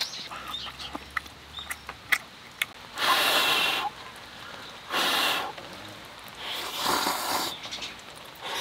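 A person slurping cup ramen noodles three times, in short noisy bursts about two seconds apart, after a few light clicks.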